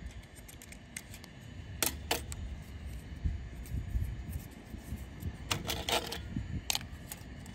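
Hard plastic clicks and snaps of a toy launcher and its plastic spinning disc being handled and fitted together: a pair of clicks about two seconds in and a quick cluster about five and a half seconds in.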